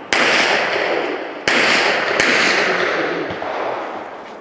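Three gunshots from a shouldered long gun: the second about a second and a third after the first, the third under a second later, each trailing off slowly.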